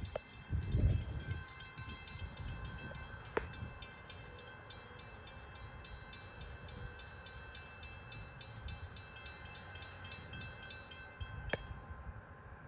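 NJ Transit train running through the station: a steady low rumble with a fast, even ticking from the wheels, and a sharp click about three seconds in and another near the end.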